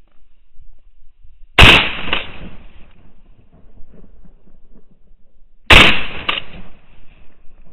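Two shotgun shots about four seconds apart, each loud and sharp, with a fainter crack about half a second after each.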